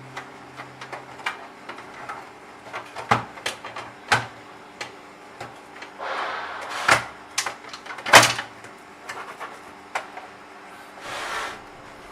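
Electronic hotel lock mortise being handled and fitted into a door: irregular clicks and knocks of the parts, the loudest a little after eight seconds, with two brief scraping sounds around six seconds and near the end.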